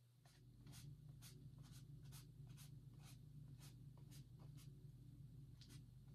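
Large flat brush stroking on an oil-painted canvas: faint, soft swishes about two a second as the paint is pulled down and across to make reflections in the water, over a low steady hum.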